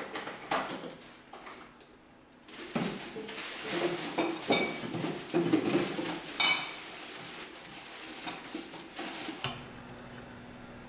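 Thin plastic bag rustling and crinkling as it is handled and folded, densest in the middle. A faint steady hum comes in near the end.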